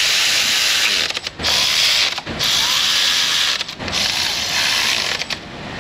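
A power ratchet running shouldered bolts down in four runs of one to two seconds each, with a loud, steady hiss and short pauses between runs.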